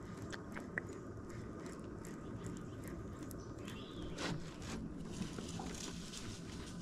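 Steady low outdoor background noise with a few light clicks in the first second and a brief swish about four seconds in.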